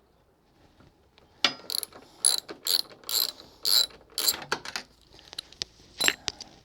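Socket ratchet wrench clicking in short bursts, about two strokes a second, as a motorcycle seat bolt is worked loose. The clicking starts about a second and a half in, pauses, and ends with one more burst near the end.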